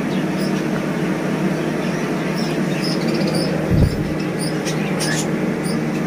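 A steady background hum and hiss, with small aviary birds giving faint, short, high chirps now and then. There is one dull thump about four seconds in.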